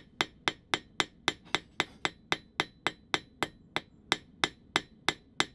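A blacksmith's rounding hammer strikes a red-hot steel bar on an anvil in a steady rhythm, about four blows a second, each blow with a short metallic ring. The hammering is spreading and drawing out the hot end of the bar.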